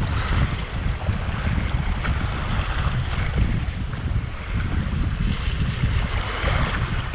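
Wind buffeting the microphone over choppy sea water washing and splashing against shoreline rocks.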